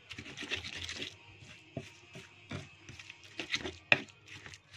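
Pestle grinding spice paste in a cobek mortar: irregular rubbing scrapes and small knocks, with one sharper knock about four seconds in.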